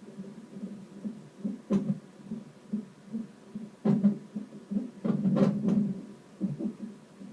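Fetal heartbeat through a Doppler fetal monitor during a non-stress test: fast, even pulses about two and a half a second. Two sudden louder sounds about two seconds apart are the baby hiccuping, and a longer loud stretch about five seconds in is the baby wiggling against the monitor.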